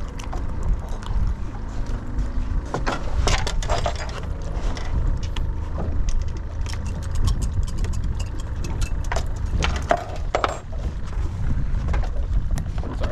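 Wind rumbling on the microphone in a small open skiff, with scattered light knocks and clicks as fishing tackle and bait are handled on deck.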